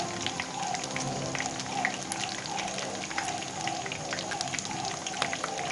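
Potato smiley patties deep-frying in hot oil, a steady dense crackle and sizzle of many small sharp pops.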